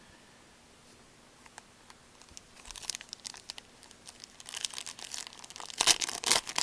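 A trading-card pack wrapper being torn open and crinkled by hand. It is quiet at first, then a run of crackling tears starts a little past halfway and grows louder toward the end.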